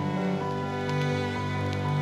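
Background music with slow, held notes.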